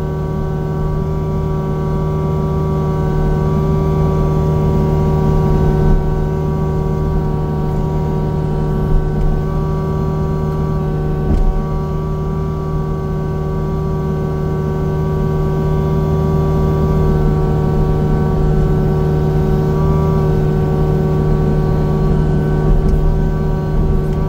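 Engine of a steel-tracked land-clearing machine running steadily at an even pitch, with a few short knocks scattered through.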